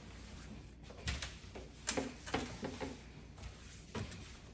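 A run of light clicks and knocks with a few short squeaks, starting about a second in and dying away after the middle: small household items being handled.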